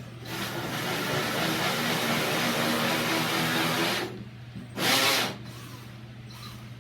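Power drill spinning a hole saw into a door, cutting steadily for about four seconds, then a short second burst about a second later. The cut is being made from the back of the door so the front face does not tear out.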